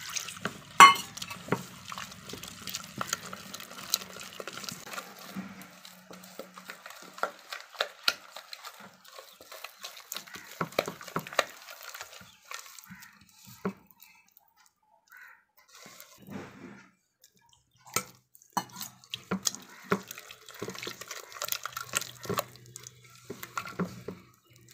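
A hand mixing gram-flour batter with water in a steel bowl: irregular wet squelches and splats, with the odd sharp click against the bowl, the loudest about a second in.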